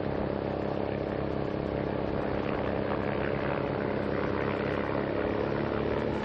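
Steady engine drone from the motor vehicles accompanying a bike race, a constant hum of several held tones.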